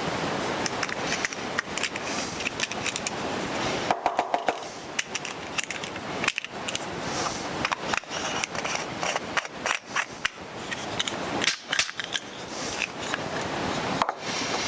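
Hand brace turning a screw-tipped bit into a pine block: a steady rasping of the cutters shaving the wood, with many sharp clicks and creaks as the brace is cranked.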